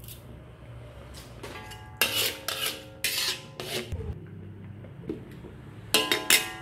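A metal ladle clanking against a wok, several sharp ringing strikes about two to four seconds in, then a metal lid set down on the wok with a quick rattle of clinks near the end.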